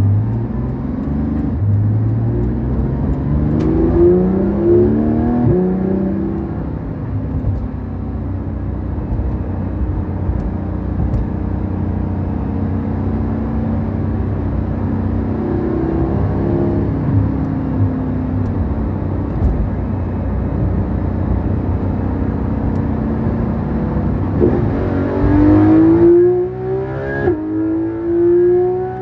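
Porsche 911 GT3 RS (991.2) 4.0-litre naturally aspirated flat-six heard from inside the cabin. It accelerates away in several rising pulls, the pitch dropping back at each upshift. It then cruises at a steady pitch and pulls hard again through two more rising runs near the end.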